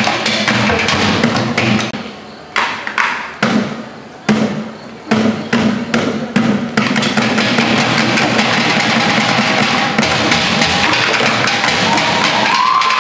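Group percussion on plastic barrels and buckets struck with sticks: a fast, dense beat that thins to a few separate strikes with short pauses, then picks back up into continuous drumming. Shouts begin to rise over it near the end.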